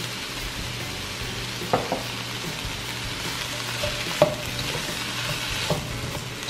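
Diced vegetables sizzling in a hot wok while a slotted spatula stirs them, with three sharp knocks of the spatula against the pan.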